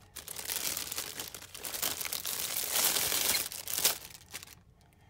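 Clear plastic shrink-wrap on a small cardboard box crinkling as it is pulled off, loudest a few seconds in, then dying away near the end.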